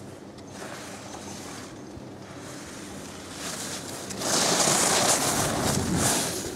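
Skis hissing and scraping on snow as a skier carves past close by. The sound grows loud about four seconds in for some two seconds, then fades, over a steady low wind noise.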